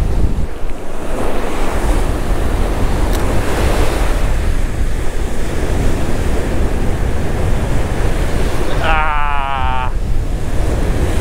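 Wind of about 20 mph buffeting the chest-mounted GoPro microphone over breaking surf, a steady rumbling rush. About nine seconds in there is a brief whining tone lasting about a second.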